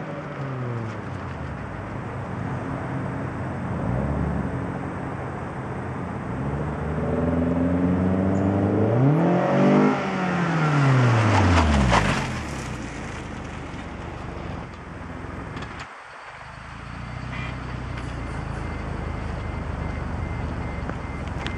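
2011 Scion tC with a Descendant aftermarket exhaust driving by, its 2.5-litre four-cylinder exhaust note dropping in pitch and fading at the start. It swells again into a loud pass about ten to twelve seconds in, pitch rising then sweeping down as it goes by, then dies away to a low steady rumble.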